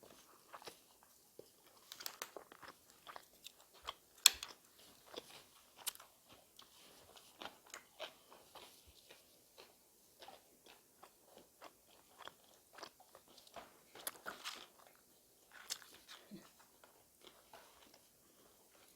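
A person chewing and biting food, with scattered crunchy bites and small mouth clicks; one sharper click about four seconds in.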